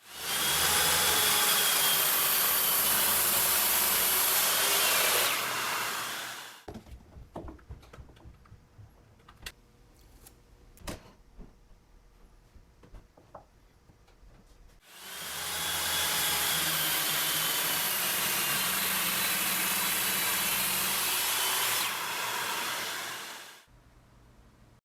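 Drill-powered disc sander running for about six seconds, stopping, then running again for about eight seconds, with a wavering whine over its hiss. Between the two runs there are scattered clicks and knocks of handling.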